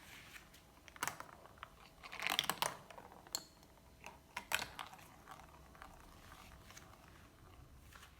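Marbles clicking and clattering as they run down a plastic marble run track, in irregular knocks with a quick flurry of clicks about two to three seconds in.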